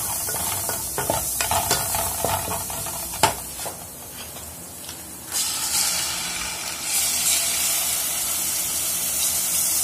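Oil and seasoning frying in a pot, a steady sizzle, with a wooden spoon stirring and tapping against the pot over the first three seconds and one sharp knock about three seconds in. The sizzle goes quiet for a moment, then flares up loudly about five seconds in and again near seven seconds as tomato paste is squeezed into the hot oil.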